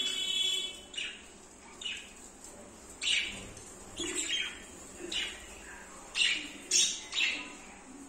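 Budgerigars chirping and squawking: a string of short, sharp calls about once or twice a second, opening with a brief warbled call.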